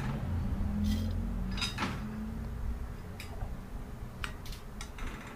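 A metal spoon scrapes and taps against an aluminium wok as fried leaves are scooped out onto a plate. It makes a handful of short, sharp clicks and scrapes over a low steady hum.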